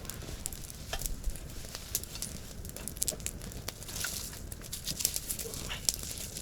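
Small twig campfire crackling, with scattered sharp pops, and a brief rustle about four seconds in.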